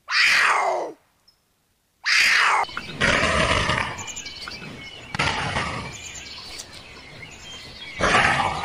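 Puma giving two short falling screams, each under a second. From about three seconds in, a cheetah calls in a rougher, noisier recording, louder about five and eight seconds in.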